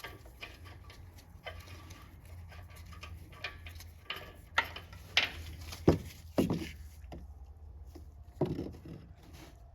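Oxygen sensor socket clicking and scraping as the old heated oxygen sensor is unscrewed from the exhaust, with a few short squeaks over a steady low hum.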